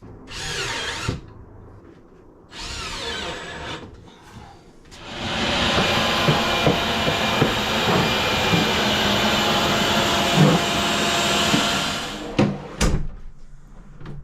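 Power drill running: two short bursts that rise in pitch as it speeds up, then a longer steady run of about seven seconds while fitting drawer slides to cabinets. It ends with a couple of sharp knocks.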